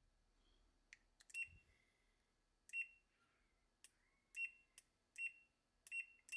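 Automotive relay clicking faintly as a 9-volt battery is touched to its coil again and again. Each time its contacts close, a multimeter's continuity tester gives a short, high beep, about six in all, spaced unevenly. The relay is intermittently failing.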